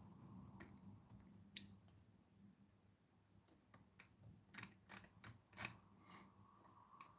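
Near silence with a few faint, scattered clicks from a laptop while a document is scrolled.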